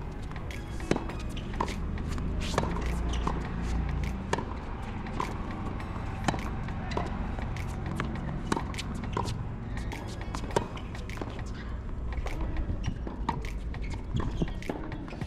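Tennis balls struck by racquets in a practice rally, a string of sharp pops at uneven intervals, one or two a second, some louder and closer than others. Under them runs a steady low rumble of background noise.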